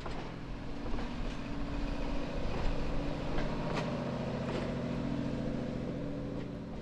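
Tail end of a stainless steel passenger train rolling slowly past, with wheel clicks over the rail joints and a steady droning engine hum that fades near the end as the last car goes by.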